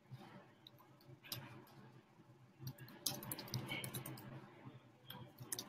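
Faint, scattered clicks of a computer mouse and keyboard, bunched about three seconds in and again near the end.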